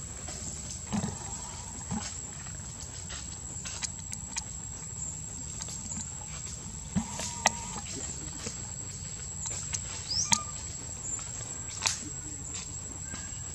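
A baby macaque clambering along tree branches: scattered small snaps and knocks of twigs and leaves, with a brief high rising chirp about ten seconds in, over a steady high whine.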